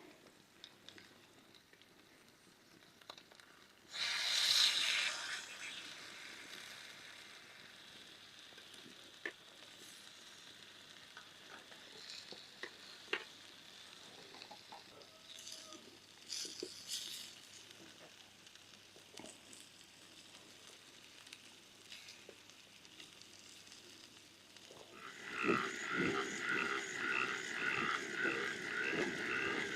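Chicken sizzling on a hot stone, with a loud hissing surge about four seconds in and scattered small clicks and pops. Near the end a louder rhythmic pulsing sound sets in and carries on.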